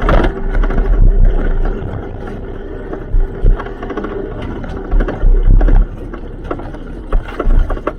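Car engine running under heavy, uneven rumble with scattered knocks and loud deep surges, typical of onboard noise in a rally car.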